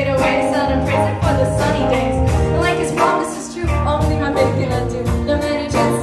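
Live band playing a funk and R&B song: a female lead vocal over electric and acoustic guitars, bass guitar and drums with a steady beat.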